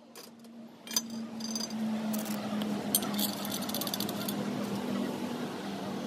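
Steel bracket parts, bolts and washers clinking and rattling as they are handled, several sharp metallic clicks with a brief ring, over a steady low hum.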